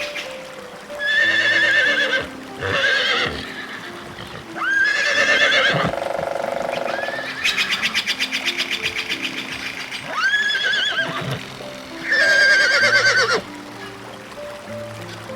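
An equine animal whinnying repeatedly, about six calls with a quavering, trembling pitch, one of them a rapid pulsing trill, over soft background music.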